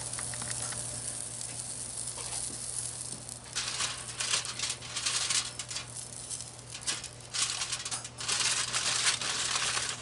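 Squash sizzling on the cast-iron grate of a charcoal grill, a steady hiss. From about three and a half seconds in, irregular bursts of crinkling and rustling, louder than the sizzle, as the skewers are handled and taken off.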